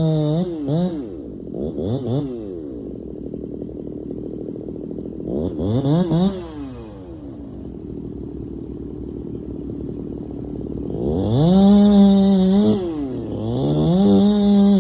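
Chainsaw revving up to full throttle and dropping back to idle several times, with a longer high-revving run near the end.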